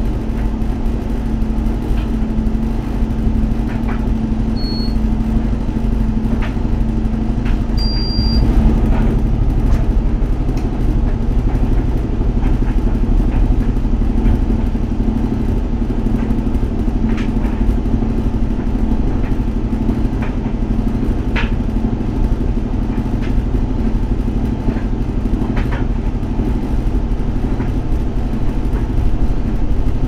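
Commercial coin-operated tumble dryers running: a steady low rumble and hum with an even drone. Light clicks and knocks come now and then, and two brief high beeps sound about five and eight seconds in.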